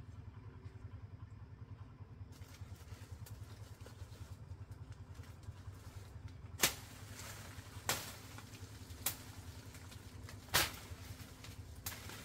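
Four sharp snaps, spread over about four seconds in the second half, of plant stems or twigs breaking as undergrowth is worked by hand. A steady low rumble runs underneath.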